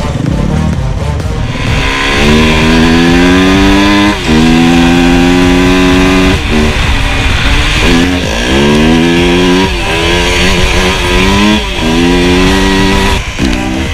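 Yamaha WR250F's single-cylinder four-stroke engine heard from on board the bike while it is ridden. From about two seconds in the engine note climbs, then drops back, again and again as the bike accelerates.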